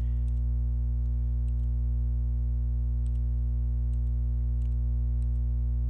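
Computer mouse clicking several times, faint and irregular, as checkboxes are ticked one by one, over a steady low electrical hum.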